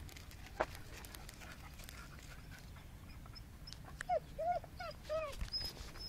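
A dog whining in a quick run of four or five short, high, arching whimpers about four seconds in, the excited whine of a dog wanting to play. Earlier there is a single sharp tap.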